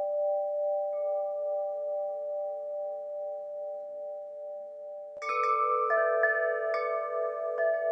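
Bell-like chime tones ringing with a slow wobble and fading away. About five seconds in, a new cluster of chimes is struck, followed by a few more strikes that ring on.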